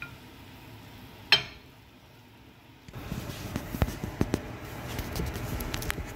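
Spatula knocking against a nonstick pan while scooping scrambled egg and tortilla chips onto a plate: one sharp knock about a second in, then a run of small irregular clicks and clatter from about three seconds in.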